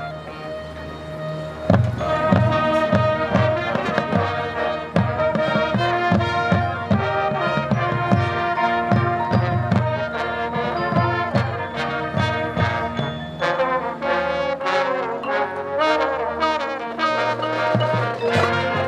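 Marching band playing: brass chords over bass drums and snares, with woodwinds. It starts softly, and about two seconds in the full band comes in loud with a run of drum hits under sustained brass.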